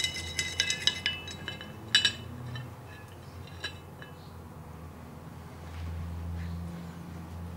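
Glassware clinking and ringing: a few light strikes in the first second, a sharper one about two seconds in and a last faint one near four seconds. Under them is a low steady hum that swells slightly near the end.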